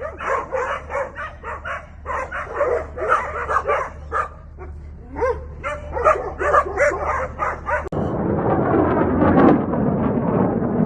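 A dog barking and yipping in quick repeated runs over a low hum. About eight seconds in, this cuts abruptly to a loud, dense noise.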